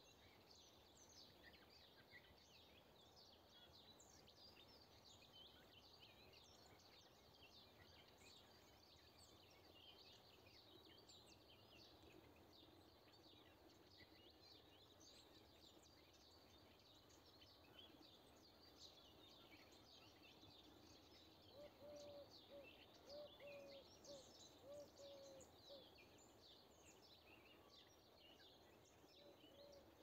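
Faint chorus of wild birds chirping and twittering throughout. From about two-thirds of the way through, a run of seven or eight short, lower-pitched repeated notes from one bird stands out as the loudest sound for a few seconds.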